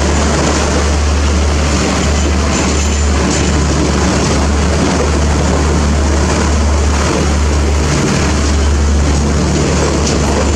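Passenger train coaches rolling slowly past with a steady low rumble.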